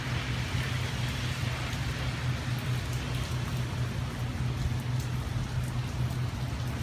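Steady hiss of light rain, with a few faint drop ticks, over a steady low hum.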